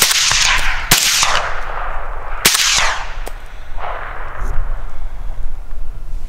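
Suppressed rifle shots at feral hogs: one right at the start, another about a second in and a third about two and a half seconds in, each sharp crack followed by a fading echo across the field.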